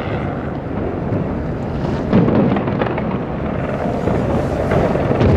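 Fireworks heard from across the river: a continuous rumble of booms and crackle, with sharper bangs about two seconds in and near the end.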